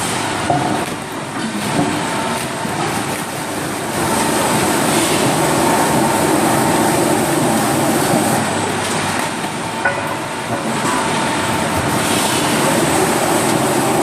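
Rotary veneer peeling lathe running, with a loud, steady machine noise and a few short knocks.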